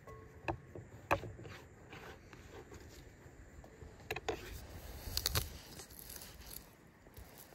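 A few scattered sharp taps and clicks of hand food preparation: bits of chopped green vegetable dropped into a glass bowl and handled on a wooden cutting board, the loudest tap about a second in.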